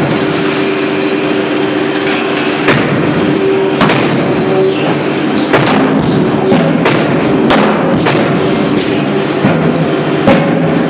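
Forge shop machinery running with a steady hum, overlaid by sharp, irregularly spaced metal bangs from a forging hammer or press striking hot steel.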